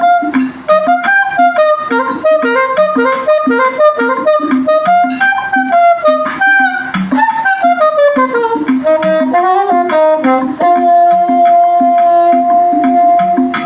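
Saxophone playing a hymn melody over a steady backing accompaniment. It moves through quick running notes, falls in a descending run, then holds one long note near the end.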